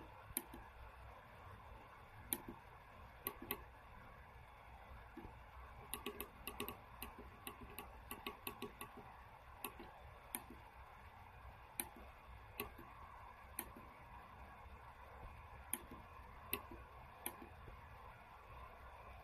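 Small tactile push buttons on a timer circuit board clicking under a finger. There are scattered single presses, and about six seconds in a quick run of clicks lasts about three seconds.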